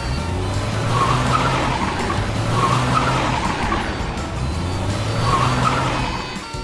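A car engine running steadily, with three short tire-squeal screeches spread across it.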